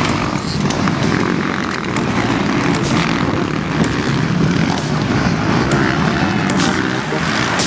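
Engines of several motocross bikes revving hard as they race past on a dirt track, a steady mixed engine noise from the pack.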